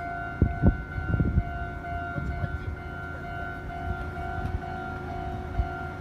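Japanese railway level crossing warning bell ringing with a steady, repeating electronic tone, the signal that a train is approaching. A few low thumps come in the first second or so.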